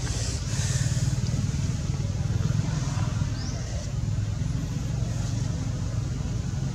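Steady low engine-like rumble of background traffic, with one short, high, rising chirp about three and a half seconds in.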